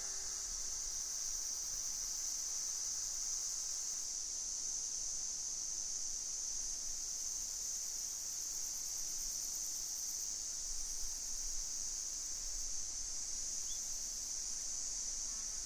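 Steady chorus of insects calling outdoors: an even, high-pitched hiss that does not let up.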